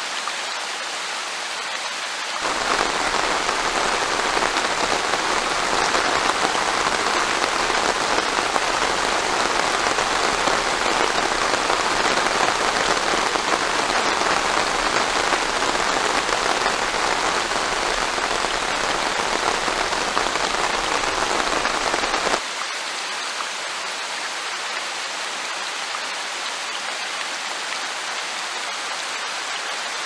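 Rain falling steadily, a dense patter with no distinct tones. It becomes louder and fuller about two seconds in, then drops back abruptly to a lighter patter a little over twenty seconds in.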